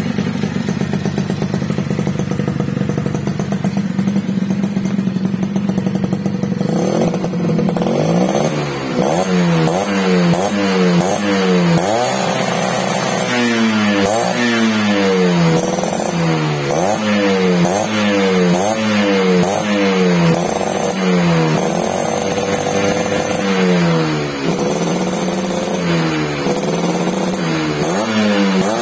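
Suzuki RC100 Bravo's two-stroke single-cylinder engine running through a gutted muffler with its baffles removed. It idles steadily for about seven seconds, then is blipped on the throttle again and again, roughly once a second, each rev dropping back toward idle.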